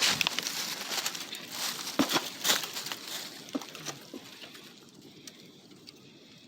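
Dry sticks and leaf litter crackling and snapping, with a few sharp snaps in the first few seconds that thin out to faint ticks.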